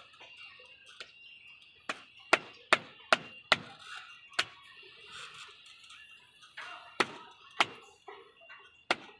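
Sharp knocks from hands tapping a precast styrofoam-core moulding strip to seat it against the wall in its adhesive: a quick run of five about two to four seconds in, then a few more spaced out.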